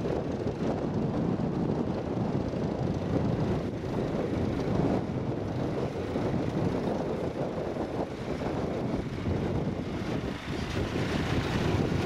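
Ford 8730 tractor's diesel engine running steadily as the tractor drives across stubble with its plough.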